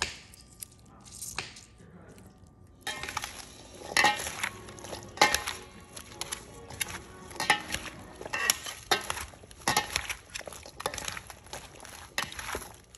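A utensil clinking and scraping against a bowl as chopped raw fish and vegetables are mixed together for ceviche, with wet squishing. Only a few clicks at first; about three seconds in, the knocks turn quick and irregular.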